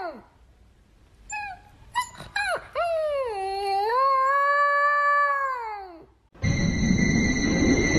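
A dog howling: a few short yips, then a long howl whose pitch dips and rises and slides down to end about six seconds in. It is followed by a loud, noisy sound with steady high tones.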